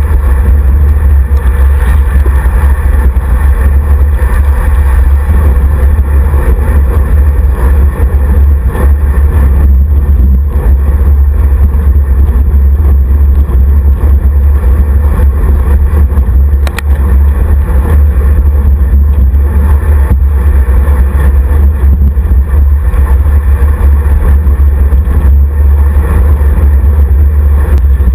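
Wind buffeting the microphone of a bike-mounted action camera on a road bike riding at speed: a loud, steady low rumble. There is a single brief click about two-thirds of the way through.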